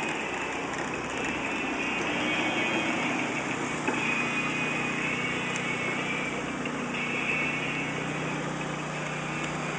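A small engine running steadily at an even pitch.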